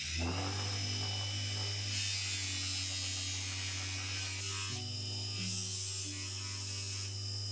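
Electric buffing motor with a cloth polishing wheel switching on and running with a steady hum. A small metal part is held against the spinning wheel to polish it.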